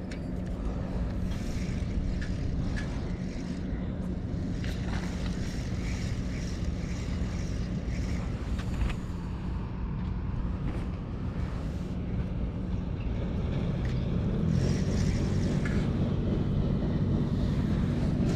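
A steady low motor hum, with a second, louder hum joining about fourteen seconds in, over wind noise on the microphone and a few light clicks.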